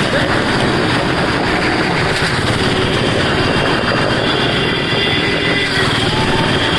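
Motorcycle engine running steadily as the bike circles the vertical wooden wall of a well-of-death drum.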